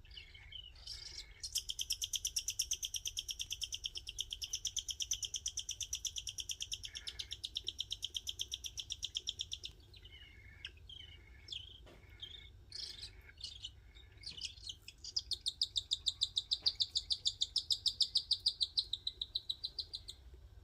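Cockatiel chicks giving rapid, evenly repeated high rasping calls in two long bouts, with scattered shorter chirps between them. The calls are the begging of chicks wanting to be fed.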